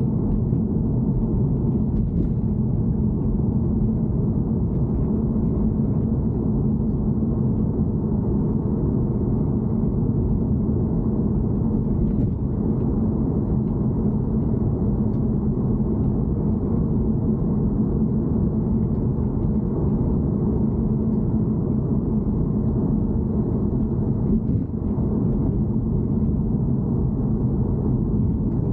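Steady low rumble with a droning hum: the abnormal noise being recorded, running unchanged throughout.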